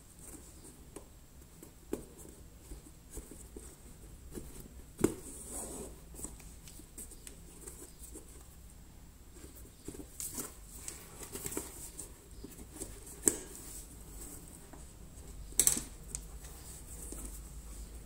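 Hand stitching leather: a needle and thread pulled through the seam, with soft rustling and handling of the leather and a few sharp clicks.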